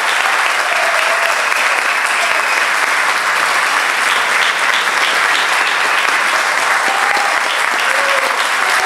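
A concert audience applauding steadily, with a few short calls rising over the clapping near the end.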